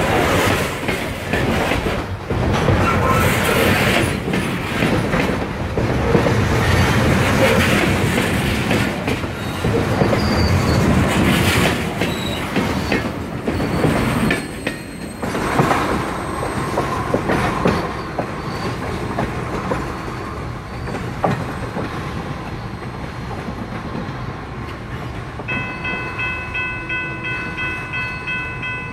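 Freight cars rolling past close by, the steel wheels clacking over rail joints. About halfway through the rumble fades away as the end of the train passes, and near the end a steady high tone sounds in the distance.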